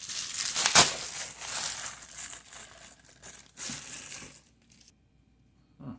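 Plastic shipping bag crinkling and rustling as it is handled and opened, loudest about a second in, then fading into lighter rustles before dying away near the end.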